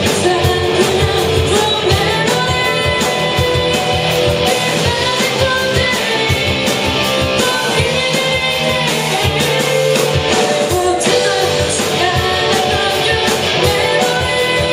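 A rock band playing live, led by guitar, with a singer's voice over it.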